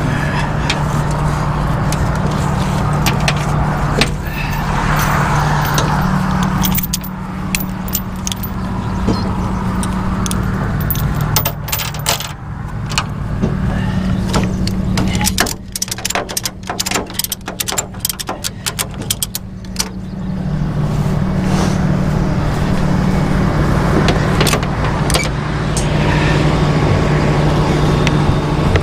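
Rollback tow truck's engine running steadily at idle, with metallic clinking and rattling and a dense run of sharp clicks about halfway through.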